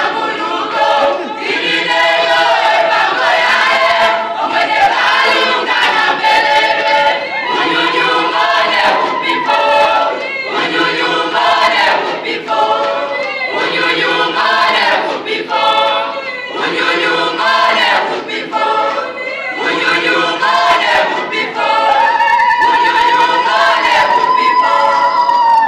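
Choir singing a rhythmic song in short, repeated phrases, ending on a long held note near the end.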